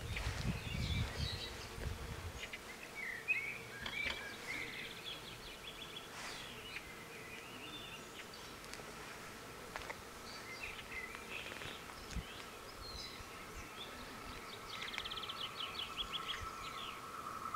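Small songbirds chirping and twittering, with a quick trill near the end. A low rumble dies away in the first two seconds, and a faint steady high hum grows stronger in the second half.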